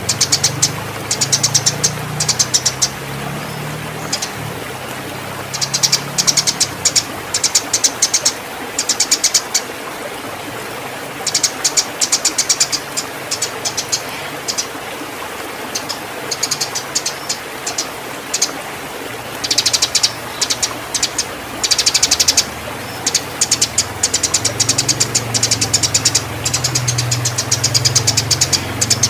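Eurasian tree sparrows chattering in repeated bursts of rapid, high chirps, the excited fighting calls of sparrows in breeding condition, over a low steady hum.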